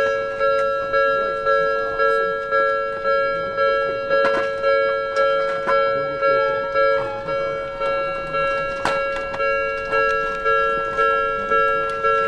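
Japanese level-crossing electronic warning bell ringing, a two-tone ding repeated evenly about one and a half times a second, each stroke fading away. It is the signal that the crossing is closed for a passing train.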